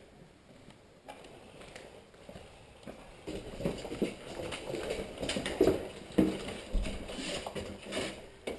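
Irregular footsteps and knocks of players moving, sparse at first and busier and louder from about three seconds in.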